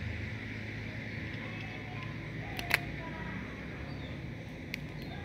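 Steady low background hum with a few sharp clicks, the loudest a little past halfway and another near the end, as a hand works a knife on small plastic rings cut from plastic containers.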